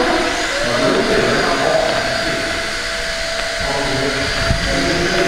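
Small electric RC micro-helicopters whirring in flight: a steady motor and rotor whine that settles into one held pitch about half a second in.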